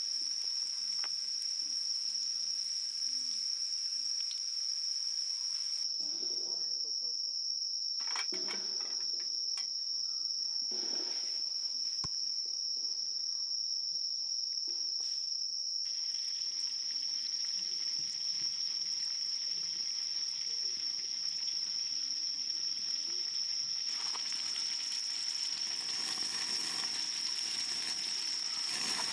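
Insects singing: a continuous high-pitched chirring held on one pitch, with a rustling hiss that grows louder over the last few seconds.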